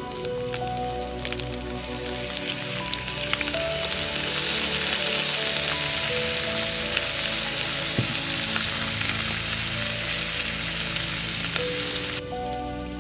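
Whole rainbow trout frying in melted butter in a nonstick pan. The sizzle swells about three seconds in as lemon juice is squeezed over the fish, stays strong, and then cuts off suddenly near the end.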